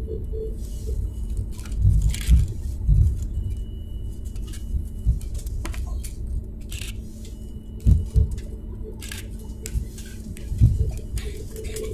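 Cabin noise of a Boeing 737 MAX 8 rolling along the runway after touchdown: a steady low rumble with several thumps and rattles as the wheels run over the runway surface.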